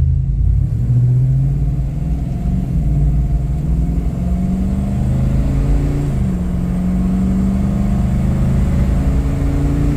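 6.2-litre LS3 V8 in an FJ60 Land Cruiser accelerating from low speed, heard from inside the cabin. The engine note climbs and then drops at each upshift of the six-speed automatic, twice and again at the very end.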